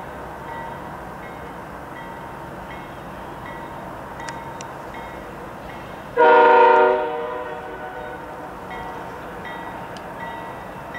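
Canadian Pacific Holiday Train locomotive passing, its air horn sounding one short loud blast about six seconds in. Under the horn are the steady sound of the moving train and a bell dinging at an even pace.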